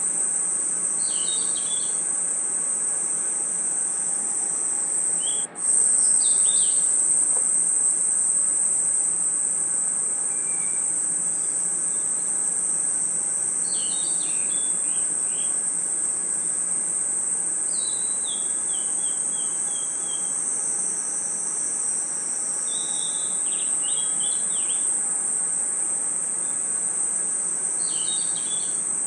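Night chorus of crickets and other insects: a steady, high-pitched trilling that never lets up. Short groups of falling bird chirps come through every few seconds, and the whole sound cuts out for an instant about five seconds in.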